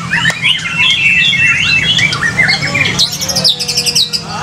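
White-rumped shama (murai batu) song: a dense run of varied whistles, chirps and pitch glides, breaking into a fast rattling trill about three seconds in, over a steady low hum.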